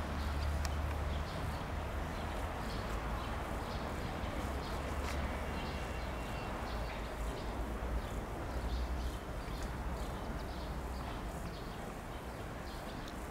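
Outdoor ambience: a steady low rumble under a light haze of noise, with faint irregular ticking throughout.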